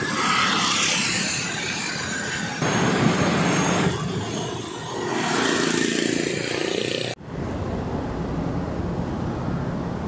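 Street traffic, cars and motorbikes passing, as a loud shifting noise. About seven seconds in it cuts abruptly to a steadier low rumble.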